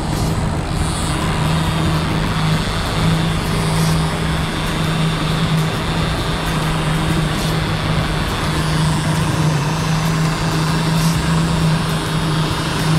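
Outboard motor running steadily at trolling speed, a constant low hum, over the rushing wash of the boat's wake and the water along the hull.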